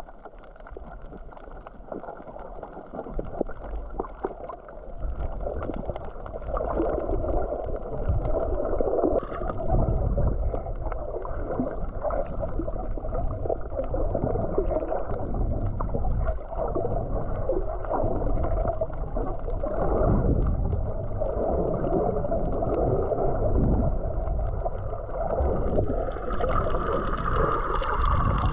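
Muffled, sloshing and gurgling water with a low rumble. It grows louder about five seconds in, and a brief higher tone joins near the end.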